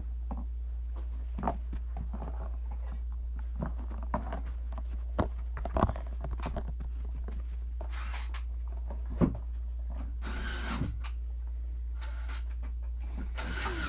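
Scattered light knocks and thumps, with several short hissing bursts in the second half, over a steady low hum.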